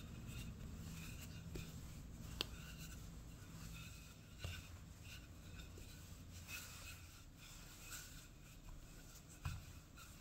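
Wooden rolling pin rolling out pizza dough on a countertop: faint, soft scraping and rubbing, with two light knocks, one a couple of seconds in and one near the end.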